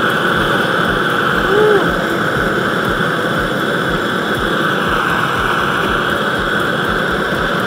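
Handheld propane torch burning at full flame with a steady, unbroken hiss as it plays against an aerogel-foam sleeve.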